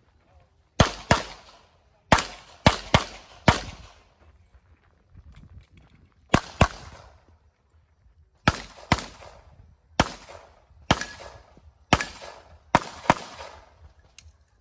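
A handgun fired about fifteen times in quick pairs and short strings, with gaps of a second or two between them. Each shot is a sharp crack with a short echo.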